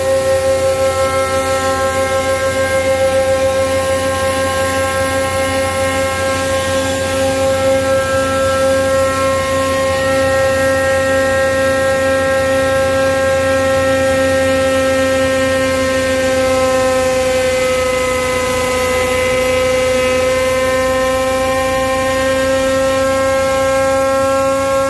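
Rexroth A4VG125 axial-piston hydrostatic pump running on a hydraulic test stand at about 1,780 rpm: a loud, steady whine with several overtones, dipping slightly in pitch a little past halfway and then recovering.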